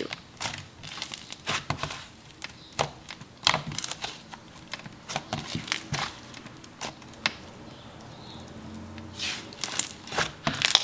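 Hands squishing, pressing and spreading a soft, creamy butter slime, giving irregular sticky clicks, crackles and squelches.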